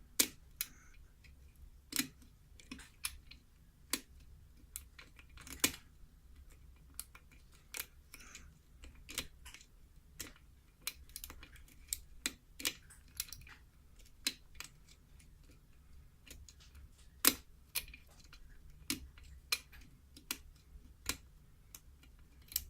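A lock pick working the pin tumblers of a six-pin KIK lock: irregular sharp metallic clicks, about one or two a second, as the pins are lifted, set and let drop.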